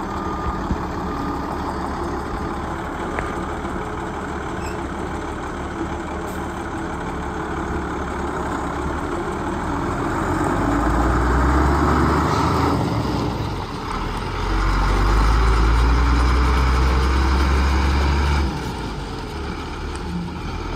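Cummins six-cylinder turbo diesel of a 1996 Freightliner FL70 box truck running at idle, then getting louder twice in the second half with a short dip between, as the truck pulls away. It drops back to a lower, steady running sound near the end.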